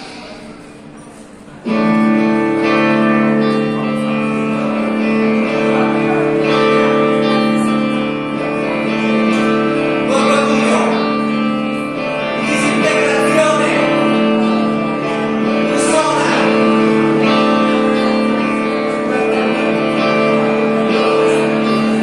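Live band music with electric guitar: after a quieter start the band comes in suddenly with loud sustained chords about two seconds in, and a man sings over them.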